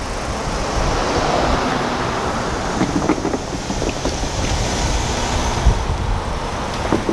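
Road traffic passing: cars and pickup trucks driving by with a steady rush of tyre noise, and wind buffeting the microphone in low rumbling gusts.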